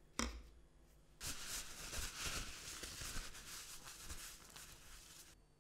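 A steel chisel set down on the bench with a single sharp knock, followed about a second later by a few seconds of crackly, scratchy rustling that stops abruptly.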